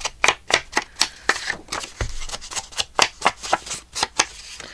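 Quick, irregular sharp taps of hand work on paper at a craft table, about four to five a second.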